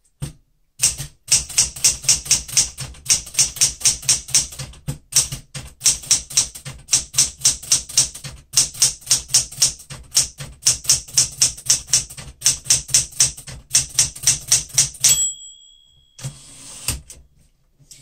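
Fast typing on a Smith-Corona Galaxie Deluxe manual portable typewriter, set to high touch pressure: quick, even key and typebar strikes for about fourteen seconds. Near the end the margin bell rings once, and the carriage is then returned in a short sweep.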